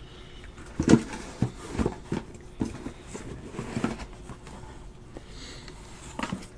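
A few light knocks and taps at uneven intervals, the sound of sealed cardboard trading-card boxes being handled and set down on a table.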